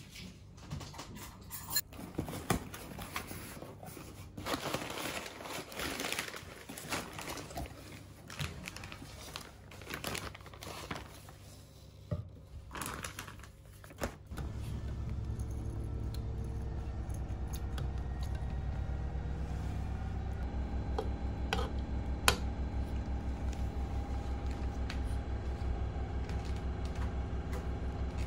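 A cardboard parcel being unpacked: tape tearing and packing paper and plastic crinkling and rustling, with scattered knocks. About halfway through the rustling gives way to a steady low hum, broken by a couple of sharp clicks.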